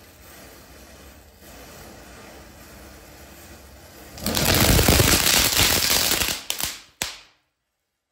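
Burning matchsticks crackle softly, then about four seconds in a firecracker goes off in a loud, dense run of rapid cracks lasting about three seconds. It ends with a couple of sharp single cracks, and then the sound cuts off abruptly.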